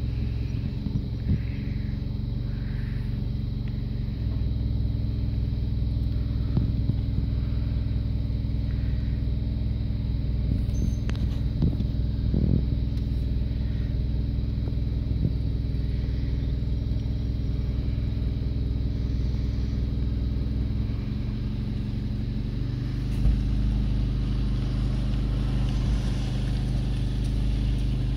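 An engine running steadily, its note shifting about four seconds in and again around twenty-one and twenty-three seconds in, with a few light metal clanks and one sharp knock near the end.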